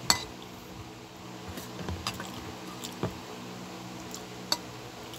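Wet chewing and squishing of a mouthful of dinuguan (pork blood stew) with penne, with a few sharp clinks of a metal spoon and fork against the bowl, the loudest right at the start. A steady low hum runs underneath.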